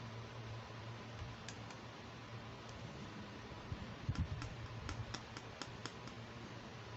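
Light plastic clicks and taps from handling a small pink plastic Hello Kitty mirror case as it is opened out, with a quick run of about ten clicks about four seconds in, over a low steady hum.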